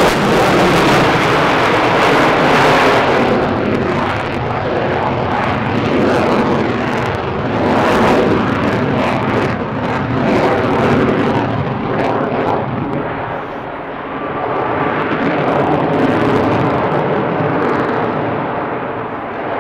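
Lockheed Martin F-22 Raptor's twin Pratt & Whitney F119 turbofans in afterburner as the jet manoeuvres overhead. A loud jet noise that swells and fades, dips about two-thirds of the way through, then builds again.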